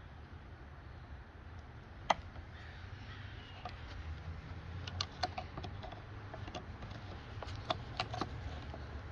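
Sharp metal clicks and taps of needle-nose pliers working the linkage clips on an outboard's carburetor. One sharp click comes about two seconds in, then clusters of quick clicks around the middle and near the end, over a low steady rumble.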